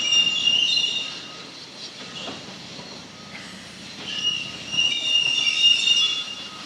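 Rail car wheels squealing against the rails: a high-pitched metallic squeal over steady running noise, loud in the first second, easing off, then loud again from about four seconds in.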